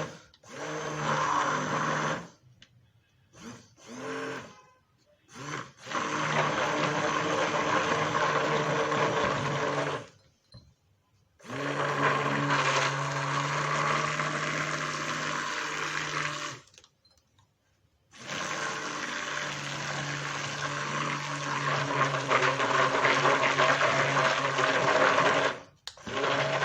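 Electric blender whipping chantilly cream, run in several long bursts of a few seconds each with brief pulses and sudden stops between them, as the cream thickens.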